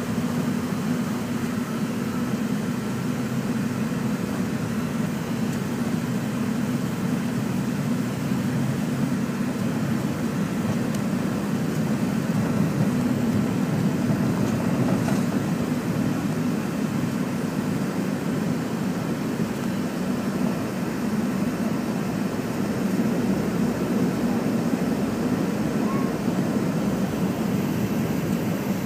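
Cabin noise of an MD-83 at takeoff power, heard from a forward window seat: the rear-mounted Pratt & Whitney JT8D turbofans and the takeoff roll give a steady low rumble through the runway run and liftoff into the climb.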